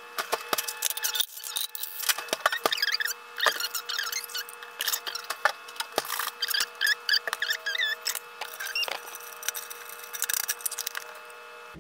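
A plastic straw and ice clicking and knocking in a clear plastic tumbler as iced coffee is mixed and stirred, in irregular clicks throughout. High wavering chirps and a steady hum run underneath.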